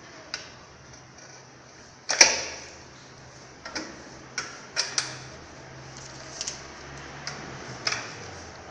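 Metal clicks and knocks of a motorcycle front brake caliper, fitted with new disc pads, being handled and seated back over the disc: one loud clack about two seconds in, then a scatter of lighter clicks.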